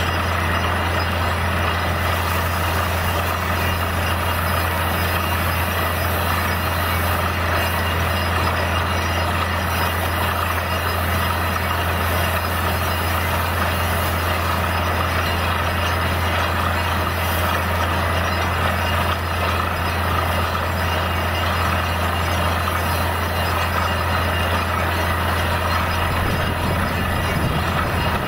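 Truck-mounted borewell drilling rig running steadily, a constant low engine drone under an even hiss of water and spray gushing out of the bore and splashing down around the rig: the new bore has struck water.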